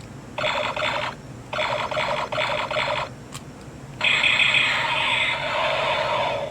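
Star Trek: The Next Generation toy phaser playing its electronic phaser sound effects through a small built-in speaker, as three separate bursts: two shorter pulsing ones, then a longer, louder one about four seconds in.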